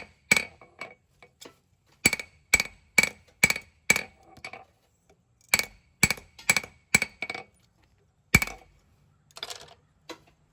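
Hand hammer striking hot steel on an anvil, drawing out a knife blade: runs of ringing blows about two a second with short pauses between, then one single hard blow and a short noisy sound near the end.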